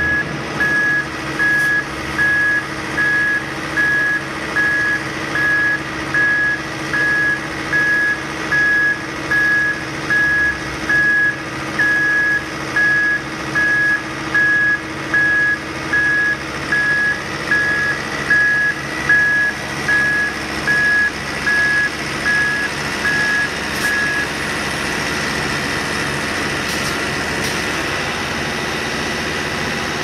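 Asphalt distributor truck's reversing alarm beeping about once a second over the truck's running engine. The beeping stops about three-quarters of the way through, leaving the engine running steadily.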